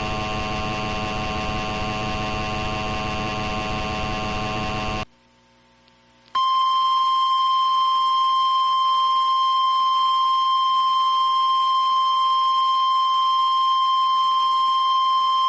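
A steady buzzing alarm tone made of many pitches stops about five seconds in. After a second of silence, a single steady high warning tone sounds for about ten seconds: the weather-radio alarm tone that announces an emergency alert.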